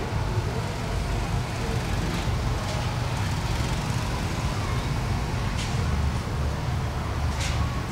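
Steady low rumble of road traffic, with a few brief hissing sounds rising above it.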